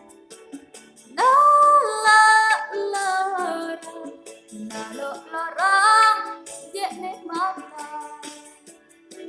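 A young woman singing in a high voice, with two loud phrases of long held notes about a second in and near the middle, and softer singing between them.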